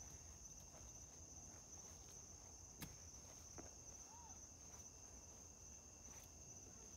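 Faint chorus of night insects: a steady high-pitched trill, with a couple of soft clicks about three and six seconds in.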